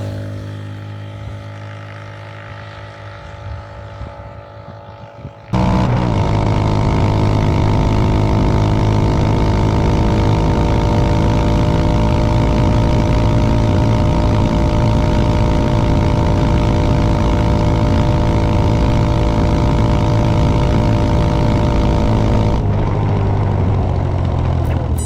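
Italika DM150 motorcycle's single-cylinder four-stroke engine running at a steady, constant speed under way, with wind and road noise. It comes in suddenly about five and a half seconds in, after a few seconds of quieter fading tones.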